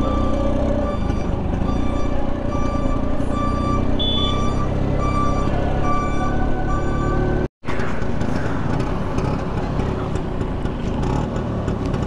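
LML Vespa NV two-stroke scooter running while riding, with road and wind noise and a steady repeating beep over it for the first seven seconds. The sound drops out for a moment about seven and a half seconds in, then the engine and wind go on without the beeping.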